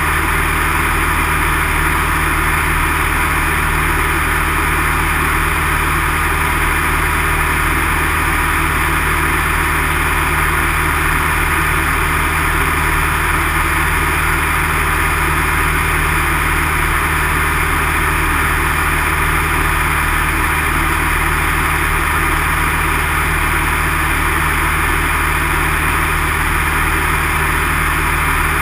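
Piston engine and propeller of a single-engine light aircraft running at a steady, unchanging drone in flight, heard from inside the cockpit.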